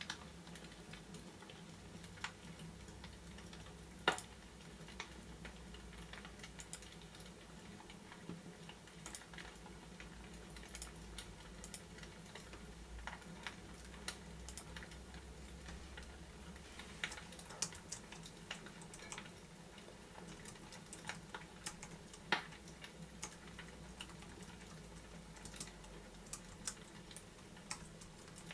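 Wood fire crackling in a fireplace: irregular sharp pops and snaps over a faint steady hum, with the loudest pops about four seconds in and again a little past the twenty-second mark.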